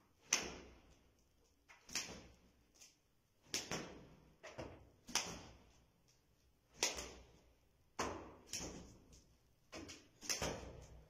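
A regular series of sharp cracking strikes, like lashes, about seven strong ones roughly every second and a half, each fading out over about half a second, with fainter strikes in between.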